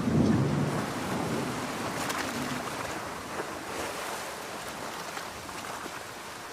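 Rain and ocean surf in a thunderstorm, with a low roll of thunder fading away over the first two seconds or so. A steady hiss of rain and waves remains and grows slowly quieter toward the end.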